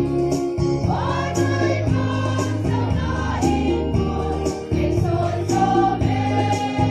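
Women's choir singing a hymn in unison over instrumental accompaniment with a steady bass line and a regular beat.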